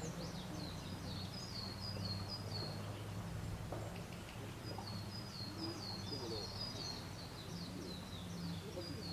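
A small songbird singing: quick runs of short, high, falling notes, repeated in two long series, the second starting about halfway through. A steady low hum runs underneath.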